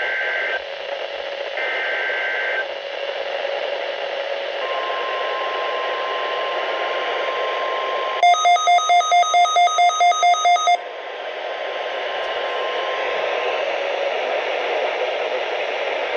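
NOAA Weather Radio alert tones over steady radio hiss. The last two short warbling bursts of the SAME digital header come about a second apart. From about five seconds in comes the steady 1050 Hz warning alarm tone, broken about eight seconds in by some two and a half seconds of rapid electronic beeping, about five beeps a second, the sign that a new warning is being issued.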